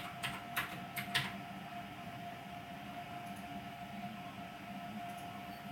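FDM 3D printer running a print quietly: a faint steady whine over a low hum from its motors and hotend fan. A few sharp clicks come in the first second or so.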